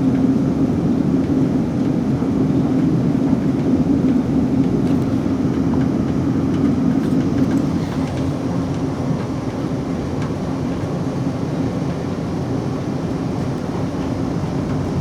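Running noise inside the carriage of a Class 458 electric multiple unit under way: a steady drone with a constant low hum, easing slightly about halfway through.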